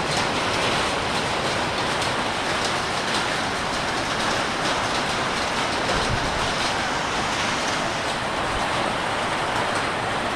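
Heavy rain mixed with hail pouring down: a steady, dense roar with small hail hits scattered through it.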